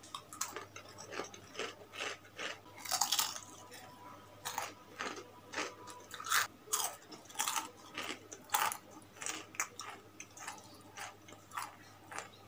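Close-up chewing of a crispy peanut cracker (keropok): a run of irregular crisp crunches, one or two a second, as it is bitten and chewed.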